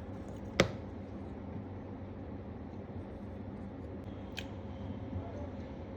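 A sharp click about half a second in and a fainter, higher click a few seconds later, over a steady low hum.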